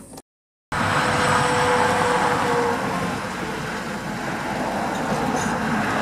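Steady rush of road traffic noise, cutting in abruptly after a half-second gap of silence near the start.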